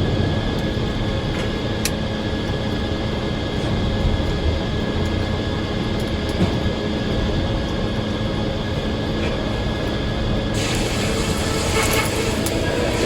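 Circular sawmill running with a steady, loud mechanical drone and a few constant tones. About ten seconds in, a harsher, brighter hiss suddenly joins it.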